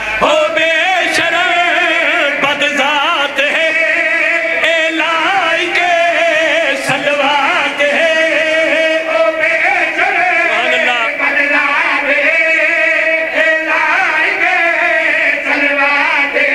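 A group of men chanting a qasida refrain together in unison, loud and amplified through hand-held microphones, without a break.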